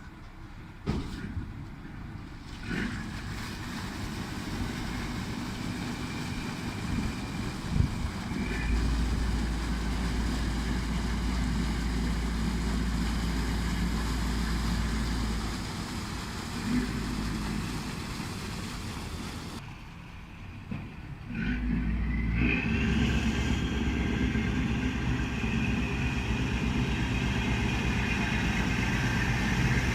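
Motor ship's diesel engine running under way, with a deep low rumble that comes in about a third of the way through, fades briefly past the middle, and returns stronger for the rest.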